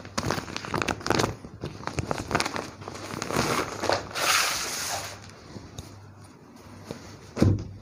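Clear plastic packaging crinkling and crackling as it is handled and opened, with a loud rustle about four seconds in, and a single thump near the end.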